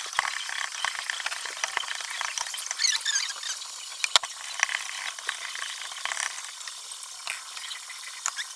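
Cooking oil sizzling in a heating electric frying pan: a steady hiss with many small sharp crackles and pops.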